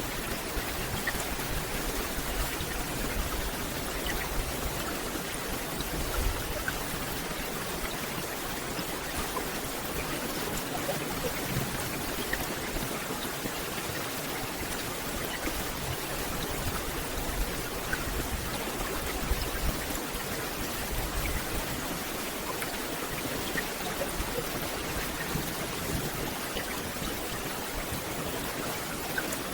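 Steady rain falling on a forest canopy: an even hiss of rain with many individual drops ticking on leaves.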